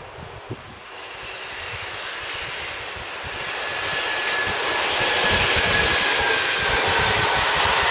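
Electric locomotive hauling a long freight train of covered wagons, approaching and passing close: the rumble and wheel-on-rail noise build over about five seconds to a steady loud roar as the wagons run by, with a faint thin whine in the middle.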